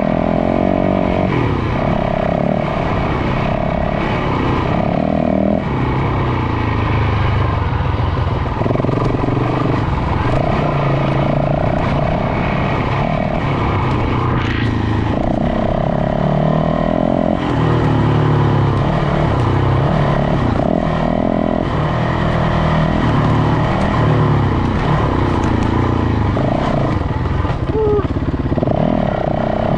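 Dirt bike engine running under load, its pitch rising and falling constantly as the throttle is worked.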